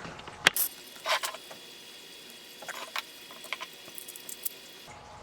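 Scattered sharp clicks and light metallic knocks from small mechanical parts and hand tools being handled during assembly, the loudest about half a second in.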